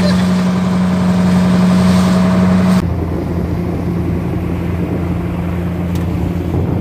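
A boat engine running steadily under way, with water rushing past the hull. About three seconds in, the sound abruptly turns quieter and duller.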